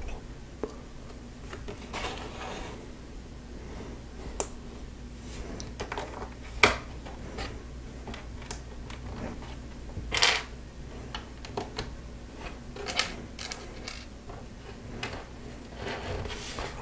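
Plastic Lego bricks clicking and clattering as pieces are picked from the pile and pressed together: scattered light clicks, with two sharper ones about 7 and 10 seconds in.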